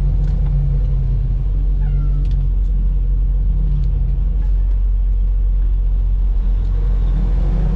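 A Freightliner semi truck's diesel engine and road noise drone steadily inside the cab. A few faint ticks and a brief falling whine come about two seconds in.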